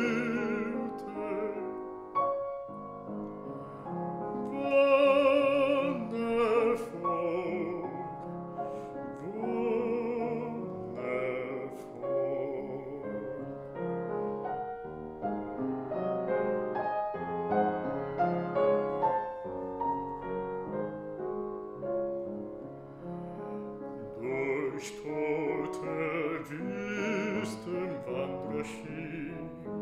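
Baritone singing a German art song with vibrato, accompanied by piano.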